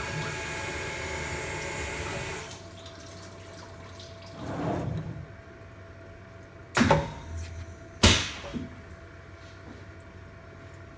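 Benchtop CNC mill (Grizzly G0704) cutting aluminium under hissing coolant mist, which stops about two and a half seconds in, leaving a faint steady hum. A brief swell of noise follows, then two sharp, loud knocks about a second apart as the tool holder is released from the spindle.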